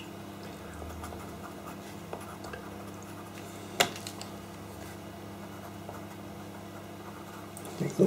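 Pastel pencil scratching faintly on paper over a steady low hum, with one sharp tap about four seconds in.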